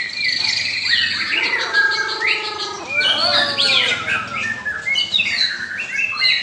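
A white-rumped shama (murai batu) singing a continuous, varied song of quick whistles, rising and falling glides and harsher buzzy notes, including the odd sounds its keeper finds strange.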